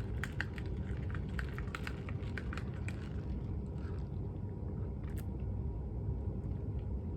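Small clicks and taps from handling plastic drink containers, thick over the first three seconds and sparser after, over a steady low rumble.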